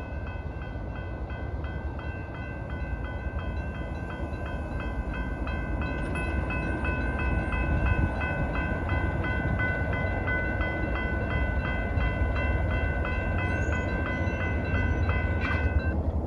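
Railroad grade-crossing warning bell ringing in rapid, even strokes, then stopping shortly before the end, the sign that the train has cleared the crossing. Under it is a steady low rumble from the departing freight train.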